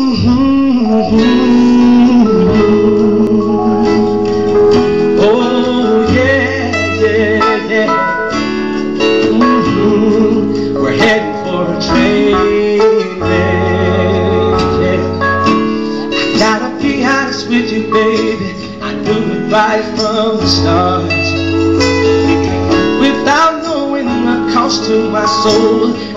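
Live pop song with acoustic guitar and keyboard accompanying a male lead vocal, heard through the venue's sound system.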